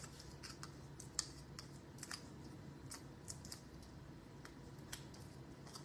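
Faint, irregular light clicks and ticks of a small cardstock circle and its foam adhesive dimensionals being handled and pressed by hand, about a dozen scattered over a few seconds.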